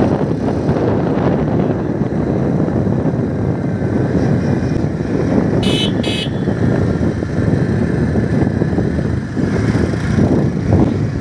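Motorcycle riding along with wind rushing over the microphone: a loud, steady rumbling noise. Two short high-pitched sounds come about halfway through.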